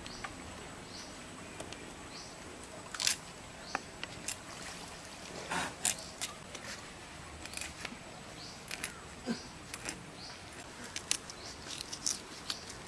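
Golden carp being scaled against the upright blade of a boti: irregular sharp clicks and short scrapes as the scales are torn off.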